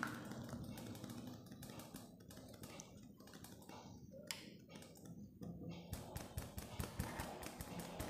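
Fingertips tapping and pressing a small lump of two-part epoxy putty flat on paper over a tabletop: faint scattered taps that become a quicker run of taps about six seconds in.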